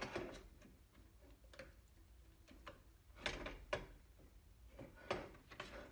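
Faint, irregular clicks and light scrapes of a wooden spoon against a fluted flan mould as hot caramel is spread around its sides.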